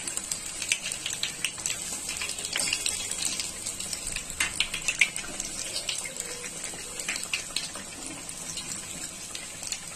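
Besan-battered bread pakoras deep-frying in hot oil, a steady sizzle full of small, quick crackles and pops.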